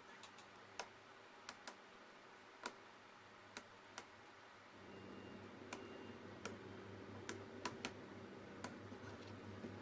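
Irregular sharp clicks of plastic Lego Technic parts being handled and pressed together, about a dozen in all, over a faint low hum that grows a little louder about halfway through.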